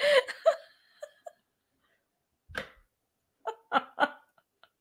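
A woman laughing in short bursts. A laugh trails off at the start, a single burst comes about halfway through, and three quick 'ha's follow near the end.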